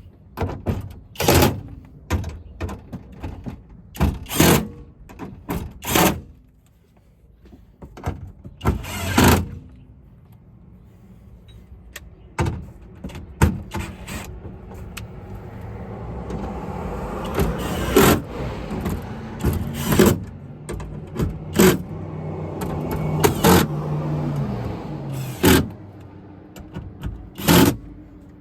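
Repeated sharp knocks and clicks of parts and tools being handled while a power window motor and door are put back together. In the middle a longer mechanical whirr with a steady low hum builds for several seconds, then stops.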